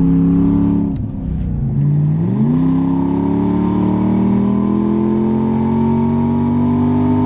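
A straight-piped 2001 Jaguar XJ8's 3.2-litre V8, exhaust open from the manifold, heard from inside the cabin while driving. The engine note falls and quietens about a second in, then climbs steeply about two seconds in and keeps rising slowly as the car accelerates.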